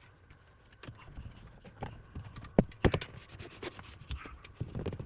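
Irregular clicks and knocks of hard objects being handled or tapped, with two louder knocks in quick succession around the middle.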